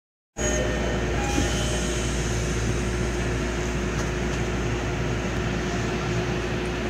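Tokyo Metro 16000 series subway car's air conditioning running loudly inside the car, a steady rush of air with a steady hum under it. It starts abruptly about half a second in.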